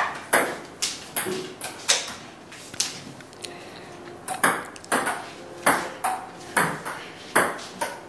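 Table tennis ball struck back and forth with paddles and bouncing on a wooden dining table: sharp clicks roughly every half second, a short lull in the middle, then the rally picks up again.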